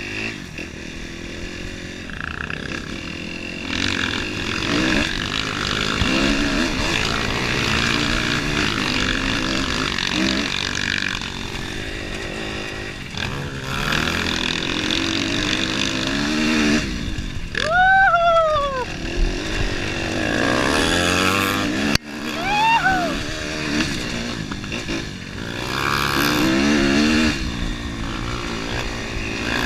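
Off-road dirt bike engine under load on a steep uphill trail climb, its revs rising and falling as the rider works up the slope. A brief high tone rises and falls about two-thirds of the way through.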